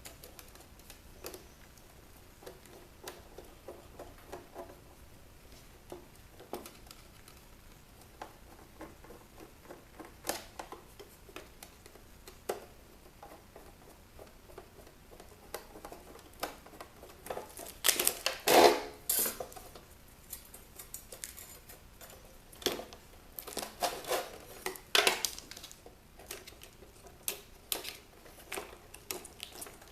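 Metal parts and tools clicking and clinking as a steel bracket is worked off a dismantled roof-mounted car DVD player. Sparse clicks, with louder bursts of clatter a little past halfway and again near three-quarters through.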